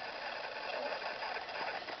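A man snoring in his sleep: a steady, rough noise with no breaks.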